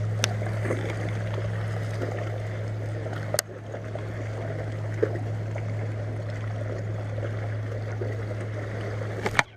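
A boat motor running steadily with a low hum, a little quieter after a click about three and a half seconds in, over water sloshing, with a few sharp clicks.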